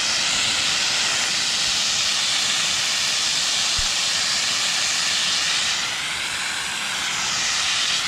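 Water jetting from a yard spigot opened full blast on a newly laid water main, a steady rush of high-pressure flow.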